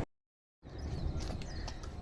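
The sound cuts out to dead silence for about half a second, then comes back as outdoor background: a low steady rumble with a few faint, short high chirps and ticks.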